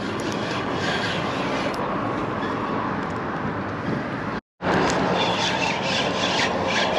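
Fishing reel being cranked steadily to bring a small fish up to the pier, a continuous rubbing whirr. It drops out for a moment about four and a half seconds in, then carries on with faint ticking over it.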